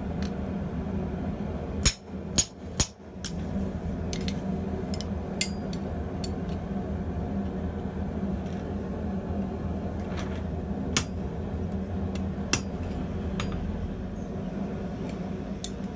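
A few sharp hammer strikes on steel, three in quick succession about two seconds in, followed by scattered light metal clinks, over a steady machine hum.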